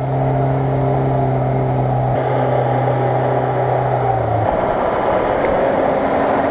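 Off-road SUV engines running steadily at high revs while driving circles through shallow floodwater, with a hiss of water and tyre noise. A Lada Niva's steady engine note drops out about four and a half seconds in, where a Nissan Patrol takes over.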